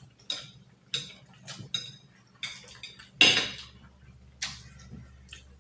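Chopsticks clicking against a plate or bowl while picking up food: a string of short, separate clicks, the loudest about three seconds in.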